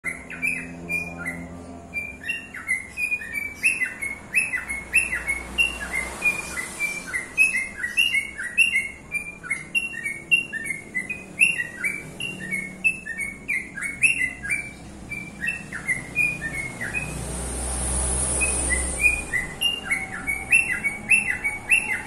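Caged cockatiel singing: a quick run of short chirping whistles, two or three a second, with a brief pause a few seconds before the end.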